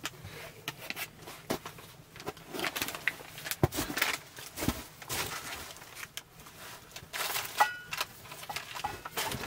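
Boots crunching and shuffling on the packed snow floor of a canvas tent, with irregular rustles and light knocks, and a short squeak about three-quarters of the way through.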